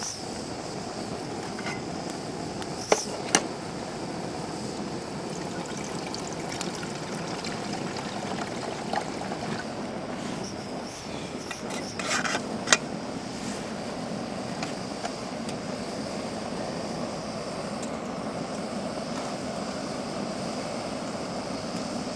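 Wood fire burning in a Snow Peak fire pit: a steady low rushing with a few sharp crackles, two about three seconds in and a small cluster about twelve seconds in.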